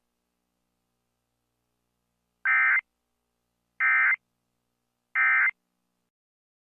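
Emergency Alert System end-of-message signal: three short, identical bursts of digital data tone, a little over a second apart, beginning about two and a half seconds in. It marks the close of the alert broadcast.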